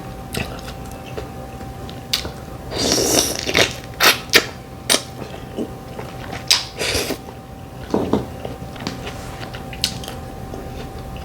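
Eating sounds from a plate of mussels in butter sauce: a series of sharp, irregular clicks of mussel shells, with a short noisy stretch of slurping or chewing about three seconds in. A faint steady hum runs underneath.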